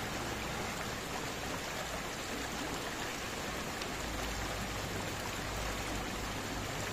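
Shallow stream running steadily over rocks and stones.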